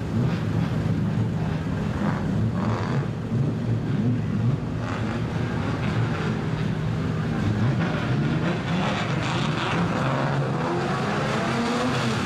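Several old Japanese cars with straight-pipe exhausts idling and creeping forward at low speed, with throttle blips that make the engine note rise and fall in the second half.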